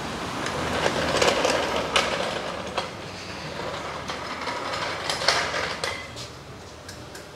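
Steel trolley floor jack being wheeled across a concrete floor, its metal wheels rattling and clattering, with several sharp metallic clicks along the way.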